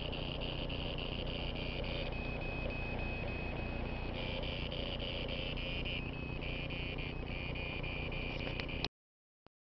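Buzzing, rhythmically pulsing electronic tone from the speaker of a handheld Doppler radio direction finder, the antenna-switching tone such a receiver produces when listening to a signal; its pitch steps a few times and it cuts off suddenly about nine seconds in.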